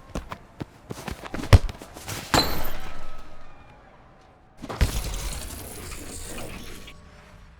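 Soccer foley sound effects: a run of quick footsteps and ball touches, a hard thump about a second and a half in, a rushing swell just after two seconds, then another heavy impact near five seconds in that trails off into a noisy wash over about two seconds.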